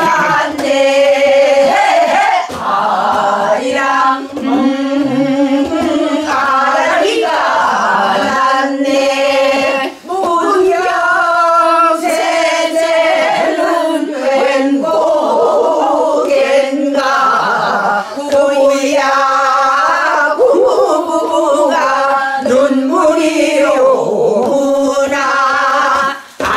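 Voices singing a Korean folk song in Namdo minyo style, with wide vibrato and sliding pitch. The singing breaks briefly about ten seconds in and again near the end.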